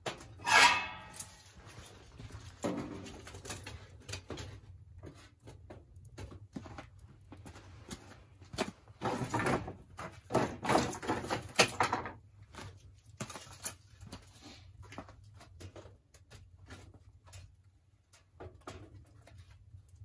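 Split firewood and kindling sticks knocking and clattering as they are handled and fed into a barrel wood stove, with a cluster of louder wooden clatters about ten seconds in. A short squealing scrape with a falling pitch comes about half a second in.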